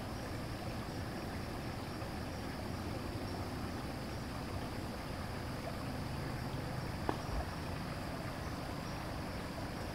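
Steady hiss of a trail camera's microphone with low night background noise, and one faint click about seven seconds in.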